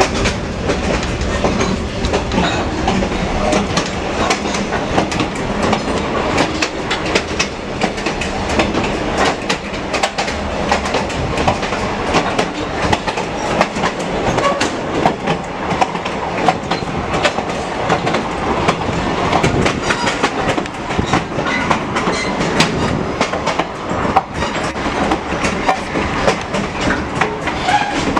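Ride noise from aboard a moving excursion train on the Whitewater Valley Railroad: a steady rumble with the wheels clicking and clacking irregularly over the track and the car rattling.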